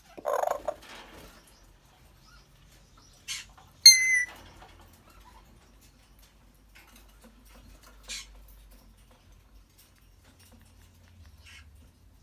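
African grey parrot vocalizing: a short, rough, low sound near the start, then a brief snap followed by a loud whistle about four seconds in, and two shorter, fainter sharp calls later on.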